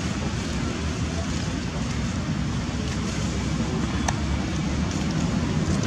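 Wind buffeting the microphone: a steady, low, rumbling noise, with a brief click about four seconds in.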